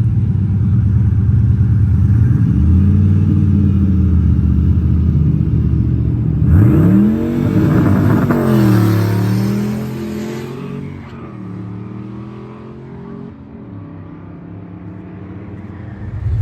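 Fox-body drag car's engine running at a steady rumble, then revved hard about six and a half seconds in. Its pitch climbs sharply, drops and climbs again, then falls away, and the engine sound fades to a lower level.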